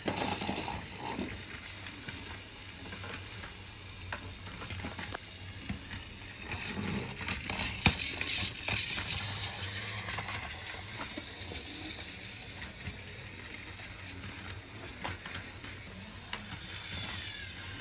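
Battery-powered toy trains running on plastic track: a small motor whirring, with gears and wheels clicking over the track joints, busiest about six to ten seconds in.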